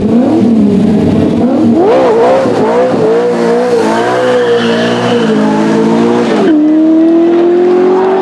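TVR Griffith 200 race car's tuned Ford 289 V8 being blipped, then launching hard with a burnout: the revs flare and waver at high pitch as the rear tyres spin and squeal. About two-thirds through the sound changes abruptly to the engine pulling steadily with the revs slowly climbing.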